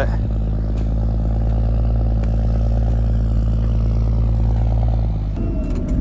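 Tractor engine running steadily under load while pulling a plough through the field. About five seconds in, the sound switches abruptly to a rougher, lower rumble.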